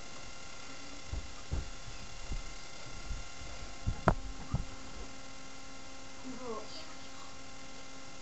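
Steady electrical hum from the webcam microphone, with a run of thumps and bumps between about one and five seconds in, the sharpest knock about four seconds in, as the camera is knocked about and handled.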